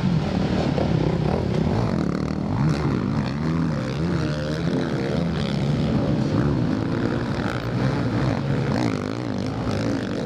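A pack of motocross bikes with their engines revving, several engine notes rising and falling over one another as the riders throttle on and off.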